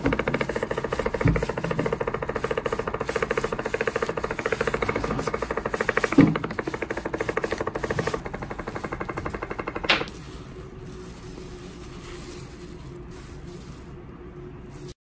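A small motor-driven machine running with a fast buzzing rattle, with a couple of knocks. It stops abruptly about ten seconds in, leaving a fainter steady hum.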